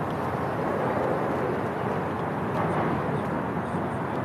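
Steady low rush and rumble of wind on the phone's microphone, wavering a little in strength.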